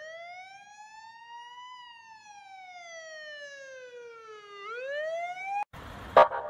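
Emergency vehicle siren sounding a slow wail: a long rise in pitch, a slower fall, then a second rise, before it cuts off suddenly. Near the end a louder, harsh pulsing blast starts.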